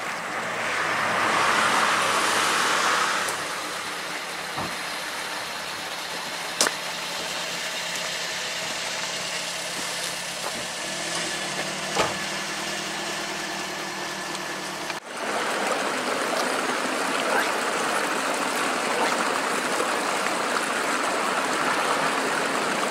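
Car-park traffic: a vehicle passes in the first few seconds, then a car engine idles steadily, with a couple of faint clicks. About 15 seconds in, the sound cuts to the steady rush of a flowing river.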